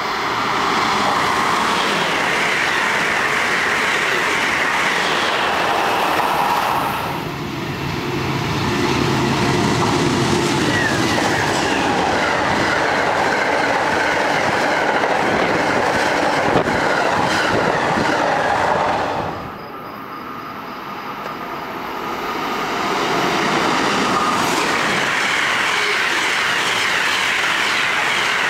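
Train passing on the rails: a continuous loud rush of wheel and rail noise that dips briefly about 7 seconds in and again around 20 seconds in, then builds back up.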